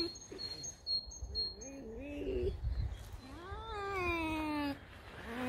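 Pet fox whining in drawn-out, wavering cries: a short cry about two seconds in, then a longer one about a second later that rises and falls.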